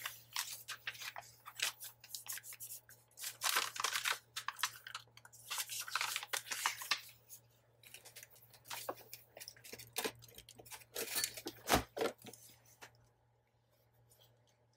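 Paper being handled close up: quick rustling and tearing strokes in irregular clusters, dying away near the end.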